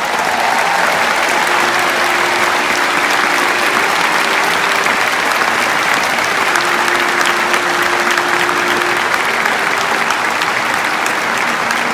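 Large stadium crowd applauding steadily, thousands of people clapping at once.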